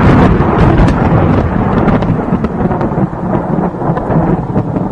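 Loud, continuous rumbling roar with scattered crackles.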